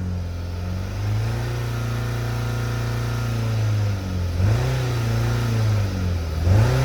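2010 Ford Focus's 2.0-litre four-cylinder engine revved up and held for about three seconds, then dropped back and blipped twice. The running is rough from an exhaust restriction, which the owner puts down to a plugged catalytic converter that smooths out somewhat at high RPM.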